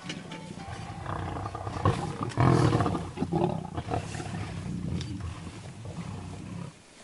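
Lions growling and snarling while feeding together on a buffalo kill, in uneven bouts with the loudest about two and a half seconds in.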